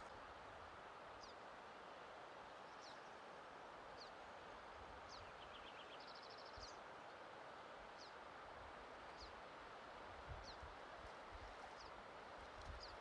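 Faint, steady rush of a mountain creek, with a small bird giving short, high, down-slurred chirps about once a second and a brief quick trill about halfway through.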